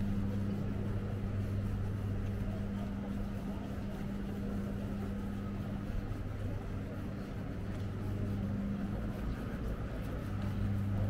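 A steady low hum over outdoor city background noise. The hum weakens around the middle and comes back stronger near the end.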